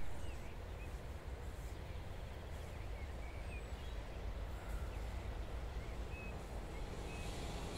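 Faint low rumble of a distant intermodal freight train hauled by a Siemens Vectron electric locomotive, approaching slowly and growing a little louder near the end, with scattered short bird chirps.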